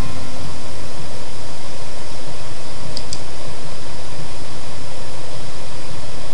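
Loud, steady hiss of broad noise, with two faint short ticks about three seconds in.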